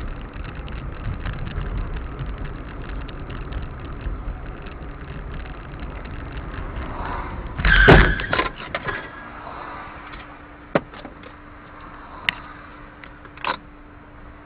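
A car's engine and road noise picked up by a dash camera, with a loud, sudden thump about eight seconds in. After it the noise drops to a quieter background with a faint steady hum and a few sharp clicks.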